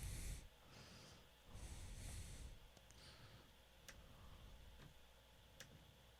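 Near silence: faint breathing close to the microphone, and two short clicks a couple of seconds apart.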